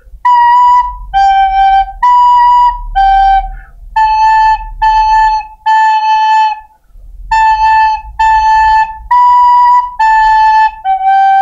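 White plastic soprano recorder playing a slow, simple three-note melody on B, A and G (si sol si sol, la la la, la la, si la sol). It is about a dozen separately tongued notes with short breaks between them, and some notes are held longer, including a longer la in the middle and the final sol.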